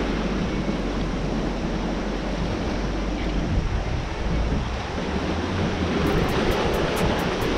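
Sea surf washing against the rocks, with wind rumbling on the microphone.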